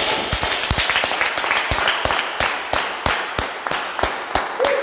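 Clapping hands, about three to four claps a second, applauding a completed heavy lift. In the first second a few heavier thuds come from the dropped bumper-plate barbell bouncing on the rubber mat.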